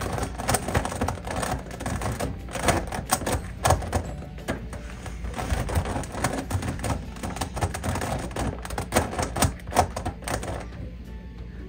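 A plastic twisty puzzle being turned quickly by hand: a dense, irregular run of clicks and clacks as its layers are twisted, stopping about a second before the end.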